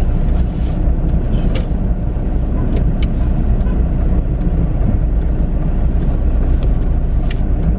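Car driving, heard from inside the cabin: a steady low road and engine rumble, with a few faint clicks.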